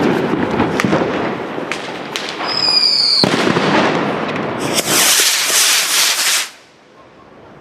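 Spanish Trueno firework rockets: the lit fuses spark and crackle with sharp pops, with a short high whistle about three seconds in. Nearly five seconds in a loud rushing hiss starts as the rockets launch, and it cuts off about a second and a half later.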